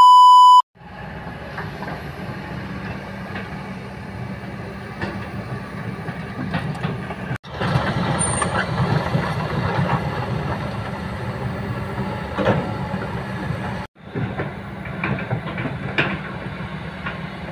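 A loud steady test-tone beep for about half a second, then a Kobelco SK210 excavator's diesel engine running steadily at work, with occasional knocks and clanks. The engine sound breaks off abruptly twice.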